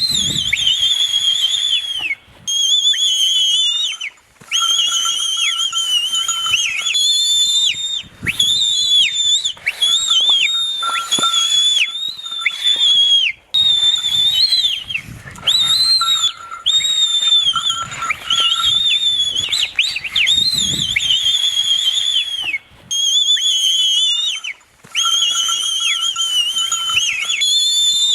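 High whistling, one long blast after another with short breaks between, each held fairly steady then wavering and dipping in pitch at its end: the whistle cue used to excite a Jallikattu bull into its 'dance'.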